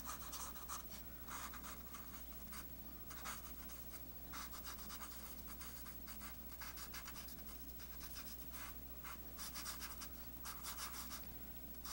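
Promarker alcohol marker's wedge tip scratching over paper in quick back-and-forth strokes, faint, in runs with short pauses between them.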